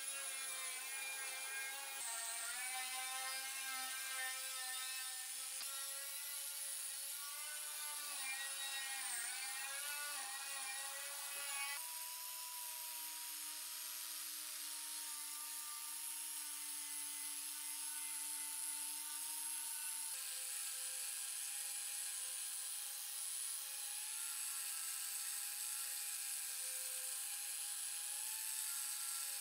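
Electric angle grinder with an abrasive wheel running against rusty steel, stripping off the rust: a steady whirring whine that wavers in pitch as the wheel is pressed to the metal. The pitch shifts abruptly about 2, 12 and 20 seconds in.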